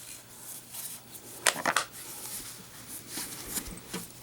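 Light handling noise of objects being moved and rubbed, with a couple of short clicks about a second and a half in.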